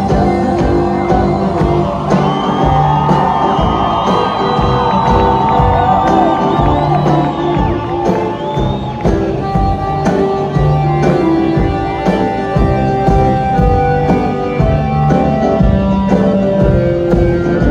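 Live band playing an instrumental break with an accordion solo over drums, bass and acoustic guitar. Crowd whoops and shouts rise over the music in the first half.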